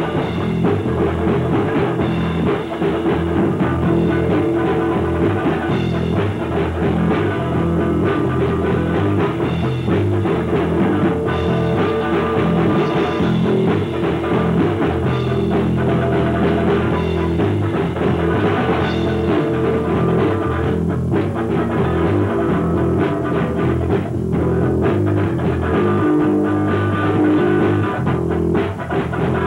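Rock music with guitar and drum kit, playing steadily throughout and sounding dull, with little treble.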